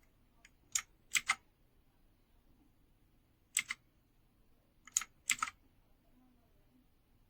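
Blue mechanical key switches on a TECURS 60% keyboard clicking as keys are pressed: about eight separate sharp keystrokes in small clusters, with quiet gaps between them.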